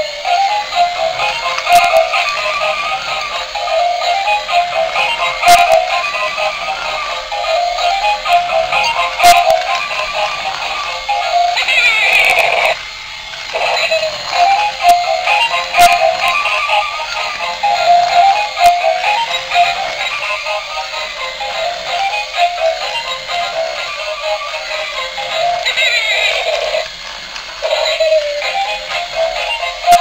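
A battery-powered Angry Bird dancing robot toy playing an electronic tune with a synthesized singing voice through its small built-in speaker. The sound is thin, with no bass, and the tune breaks briefly about 13 seconds in and again near 27 seconds.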